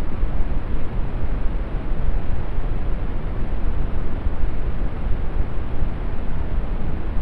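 Steady brown noise: an even, deep hiss, strongest in the low end, with no changes.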